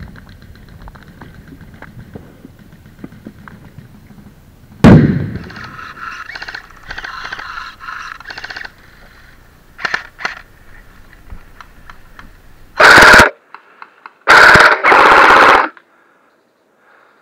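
Airsoft rifles firing in rapid bursts, a quick rattle of shots. A single loud bang comes about five seconds in, and three very loud, close bursts come near the end.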